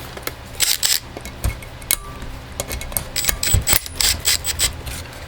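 Metal tools and small metal chainsaw parts clinking and knocking against each other while the muffler is being taken off: a busy run of sharp clicks and light metallic rattles, thickest a little after the middle.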